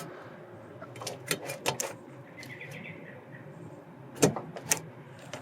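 Wrench working a rear brake caliper's slide-pin bolt: scattered metallic clicks, a cluster about a second in, a short scrape in the middle, and two sharper knocks near the end.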